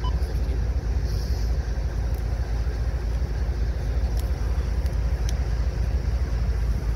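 CSX diesel-electric locomotive standing with its engine running, a steady low rumble.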